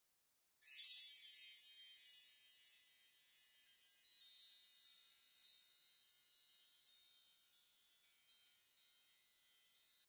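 Chimes tinkling: a shimmer of many high ringing tones that starts about half a second in, loudest at first and slowly fading away.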